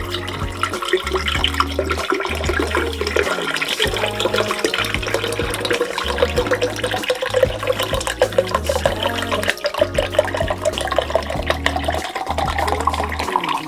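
Orange juice pouring in a steady stream from a carton into a glass carafe, splashing, with a pitch that rises steadily as the carafe fills. Low bass notes of background music run underneath.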